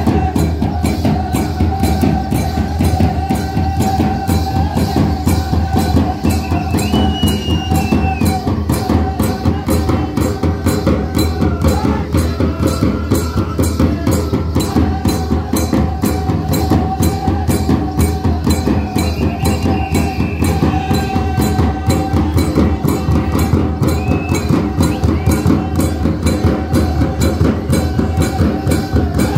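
Traditional festival drumming: a quick, steady drumbeat with sharp clicking strikes, and a long held tone over it that breaks off about twelve seconds in and resumes a few seconds later.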